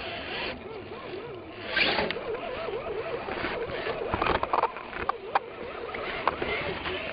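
Axial SCX10 radio-controlled rock crawler driving over rough ground: the electric motor and gears whine, wavering in pitch, with a few sharp clicks and knocks in the second half.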